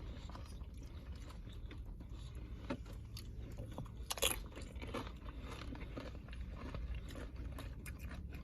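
Close-up mukbang eating sounds: chewing with crunches and small mouth clicks, the loudest click about four seconds in.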